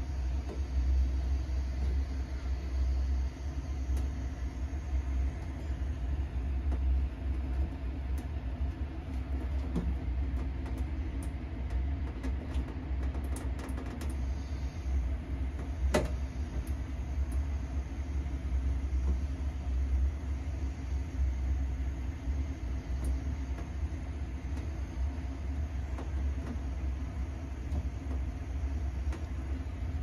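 A steady low rumble with a thin stream of tap water running into a stainless steel sink. Small clicks and taps come in the middle as hands handle the plant pot, with one sharper click partway through.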